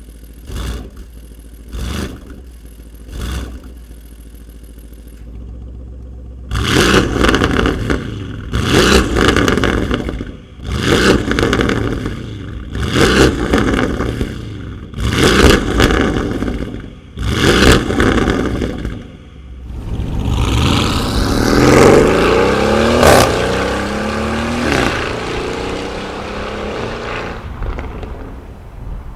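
Porsche Cayenne Turbo E-Hybrid's twin-turbo V8 with an aftermarket catted downpipe: a few short, quieter throttle blips in Comfort mode, then a run of louder free revs about every two seconds in Sport mode. About twenty seconds in the car accelerates hard, the engine note rising and falling through a long pull.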